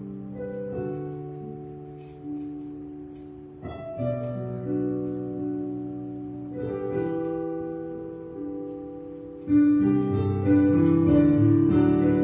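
Slow instrumental music without singing: chords of ringing notes that fade and are struck again. About three quarters of the way through it turns louder and fuller.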